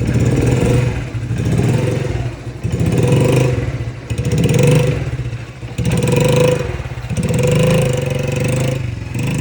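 Yamaha Raptor 50 youth ATV's small four-stroke engine running just after starting on its replacement battery, revving up and falling back about every second and a half.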